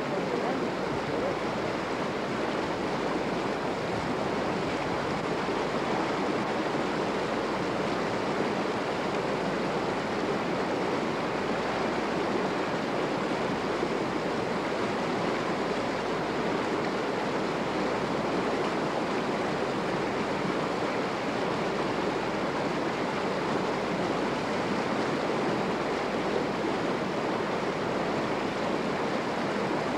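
A steady, even rushing noise that does not change or break.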